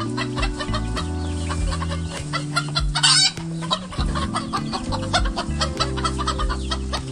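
Domestic chickens, a rooster with hens, clucking in a steady stream of short calls, with one louder, longer squawk about three seconds in.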